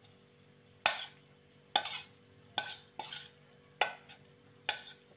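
A spoon scraping fried onion masala out of a stainless-steel bowl, six short scrapes about a second apart.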